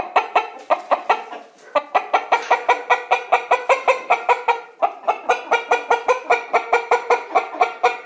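Chickens clucking: a fast, even run of short clucks, about five a second, broken by two brief pauses.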